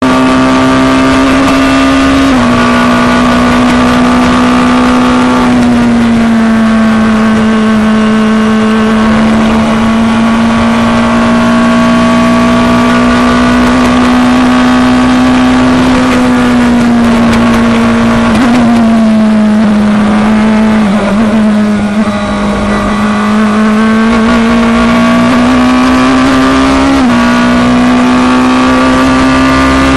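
Onboard sound of an FIA Formula Two car's turbocharged 1.8-litre four-cylinder engine at racing speed, its note holding near-steady with small steps in pitch at gear changes. The note dips lower and a little quieter around twenty seconds in as the car slows for a corner, then climbs again.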